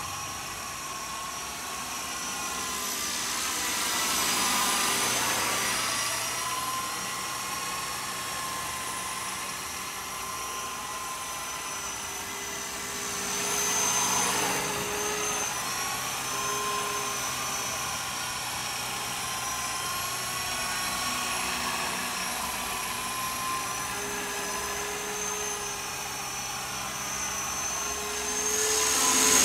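Walkera Lama 400 electric RC helicopter in flight: a steady motor and rotor whine over a rushing of air, its pitch drifting slightly. It swells louder about 4 and 14 seconds in and is loudest near the end.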